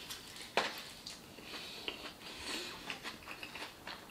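Mouth sounds of biting into and chewing a birria taco: a sharp bite about half a second in, then chewing with many small clicks and smacks.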